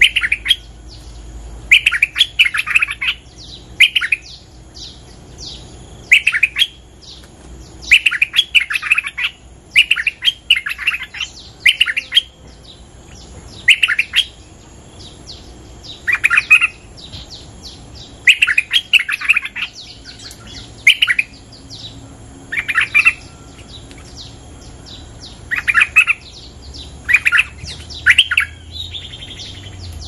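Bulbul (merbah) singing short, rapid, bubbly phrases, each about half a second long, repeated every one to two seconds. This is the luring song of a caged decoy bird. A faint steady high-pitched whine runs underneath.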